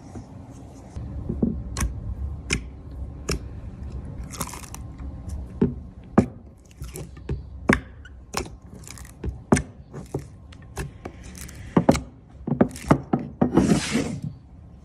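Slime being squeezed and pressed, its trapped air bubbles popping in many sharp, irregular clicks, with a longer hissing squelch near the end.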